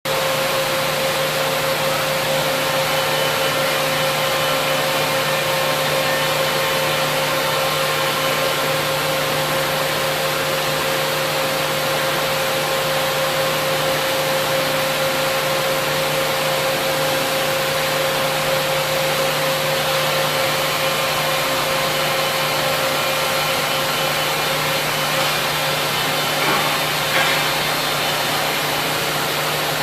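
Large SNK five-axis CNC gantry profiler running under power: a steady machine hum and hiss with a constant whine, and two brief clicks near the end.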